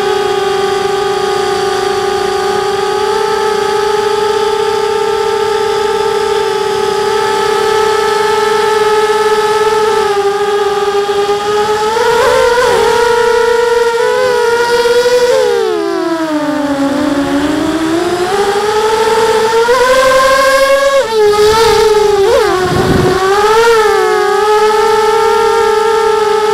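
Lumenier QAV250 racing quadcopter's 2000kv brushless motors and propellers whining, the pitch rising and falling with throttle. The whine holds steady for a while, then drops sharply about two-thirds of the way through and climbs back, with quick dips near the end.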